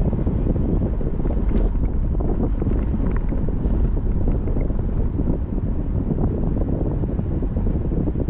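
Steady low rumble of road and wind noise from a moving car, with wind buffeting the microphone.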